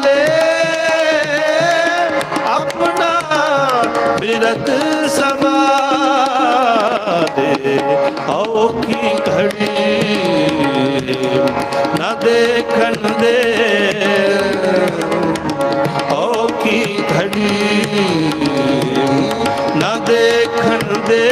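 Sikh Gurbani kirtan: a harmonium sounds sustained notes while a ragi sings a melody that bends and glides. A tabla plays a steady rhythm underneath.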